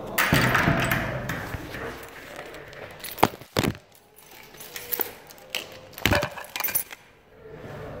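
Handling noise from a phone: the microphone rubbing against clothing, then several sharp knocks and clinks as the phone is moved about and set down.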